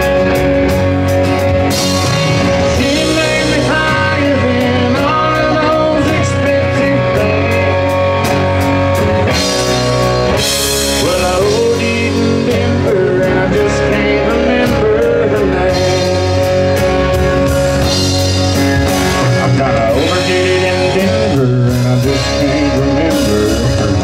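Live rock band playing loudly: electric and acoustic guitars, electric bass and drum kit, with a melody line that bends in pitch over the band.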